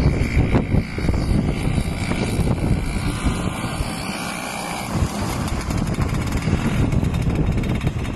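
Engine of a 1973 Snowbug Superbug vintage snowmobile running steadily as the machine drives across grass.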